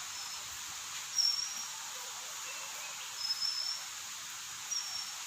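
Steady outdoor insect chorus, with a bird giving four short, high whistled notes spread through the clip.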